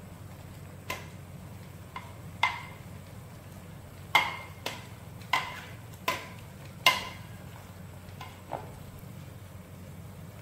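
A metal ladle clinking about ten times against the pot and bowl, each knock ringing briefly, the loudest ones in the middle. A steady low rumble from the boiling pot on its gas burner runs underneath.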